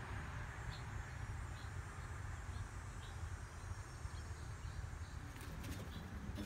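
Faint, short, high chirps repeating about once a second over a steady low rumble, with a few clicks near the end.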